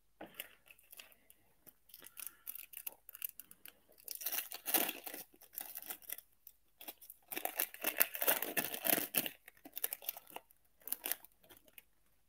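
Foil trading-card pack wrappers crinkling and being torn open, with two louder stretches of tearing about four seconds in and again about seven seconds in, between lighter rustling.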